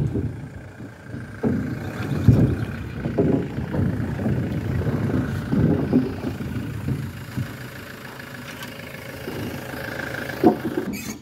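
A box van's engine running at low speed as it drives onto a wooden plank deck, with heavy thuds as its wheels roll over the boards, one at the start and another about two seconds in.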